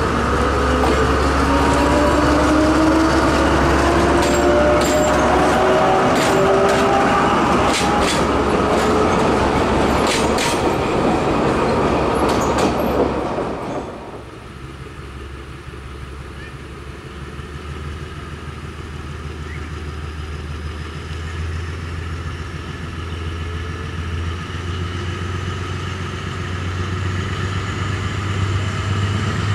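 BDŽ 75000 series narrow-gauge diesel locomotive running close by, its engine note rising in pitch, with a run of wheel clicks over rail joints. About halfway through, the sound drops suddenly to a quieter, more distant diesel engine hum that grows louder near the end as a train approaches.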